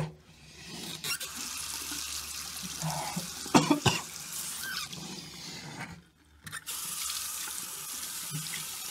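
Bathroom sink faucet running water into the basin, stopping for about half a second near six seconds in and then running on over hands being rinsed. A short, louder splash or knock about three and a half seconds in.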